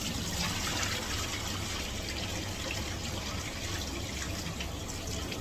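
Water running and splashing while rice is rinsed for its final wash, a steady sound that is a little stronger in the first second or so.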